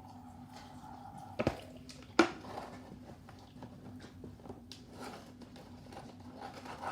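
Homemade slime being mixed, with small wet squishing and crackling sounds and two sharp knocks, the louder about two seconds in, over a faint steady hum.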